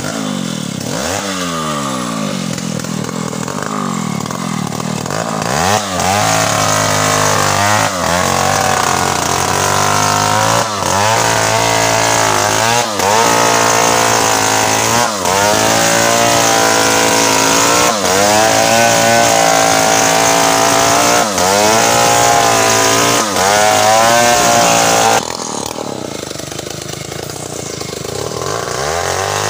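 Stihl chainsaw revving, then cutting through wood for about twenty seconds, its engine note dipping and recovering every couple of seconds under the load. Near the end it falls back to a lighter, lower running before picking up again.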